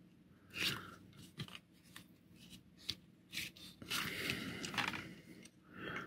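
Light scraping and clicking of a small screwdriver working the tiny screws of a 1/64-scale die-cast car body: several short separate scrapes and clicks, with a longer scrape about four seconds in.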